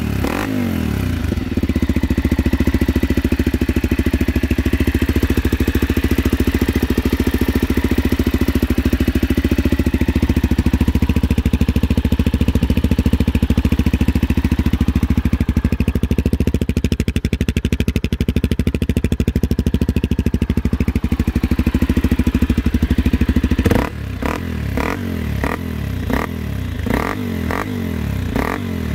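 Honda 650 dual-sport motorcycle's air-cooled single-cylinder engine running steadily at raised revs. About 24 seconds in the revs drop back to a slow, uneven idle with separate thumps.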